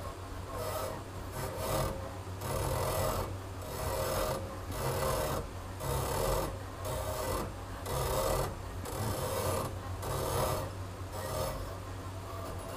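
A fishing rod blank being turned on a thread-wrapping stand while thread is wound on. Each turn gives a rasping rub that swells and fades about once a second, over a steady low hum.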